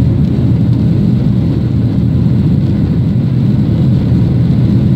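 Cabin noise of a flydubai Boeing 737 climbing out after takeoff: the jet engines at climb power, heard from a window seat over the wing as a loud, steady low rumble.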